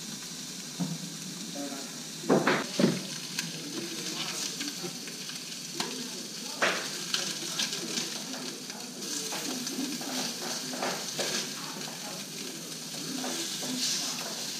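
Rainbow trout fillets sizzling as they fry in butter in a stainless steel frying pan, with a metal spatula scraping and clicking against the pan as they are stirred and turned. A couple of louder knocks come about two seconds in.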